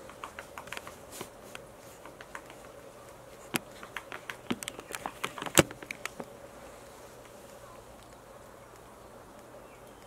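Japanese pygmy woodpecker pecking at tree bark: a run of irregular taps through the first six seconds, the loudest about five and a half seconds in, then stopping.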